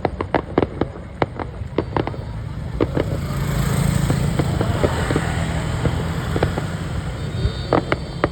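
Fireworks crackling and popping in quick, irregular cracks, with a motor vehicle's engine swelling and fading in the middle.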